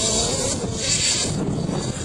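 Small combustion engine of a radio-controlled off-road model truck running, its whine wavering up and down in pitch for about the first half second and then fading into a rushing hiss.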